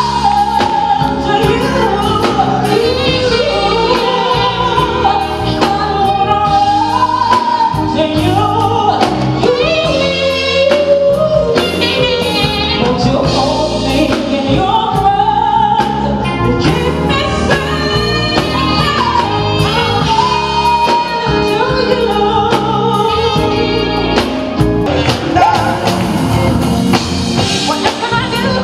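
A woman singing lead live with a band, holding long notes with vibrato.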